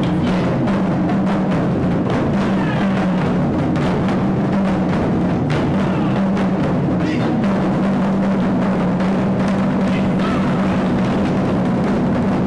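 Taiko ensemble drumming: several players strike shoulder-slung okedo-daiko and barrel drums on stands with bachi sticks in a dense, unbroken rhythm.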